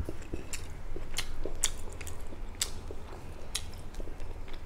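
A person chewing food, with a scatter of short, sharp mouth clicks.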